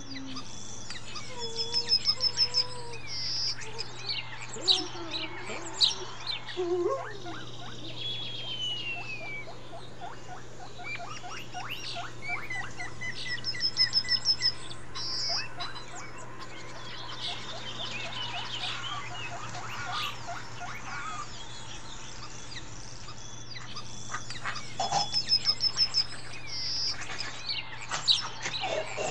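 A chorus of many birds calling: chirps, whistles and gliding notes, with a loud rapid trill that comes back three times, about every twelve seconds, over a steady low hum.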